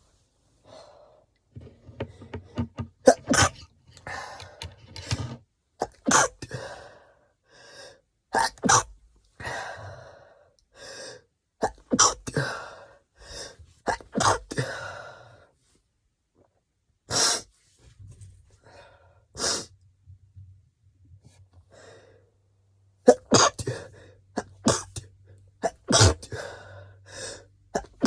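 A person sneezing over and over: a long run of stifled and wet sneezes, with sharp breaths drawn in between and a few quieter seconds about two-thirds through.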